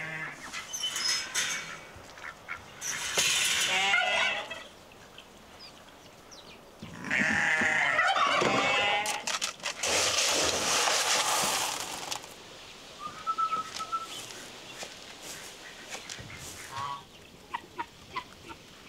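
Farm animals calling: several loud calls with a wavering pitch in the first twelve seconds, then a few short, sharp calls near the end.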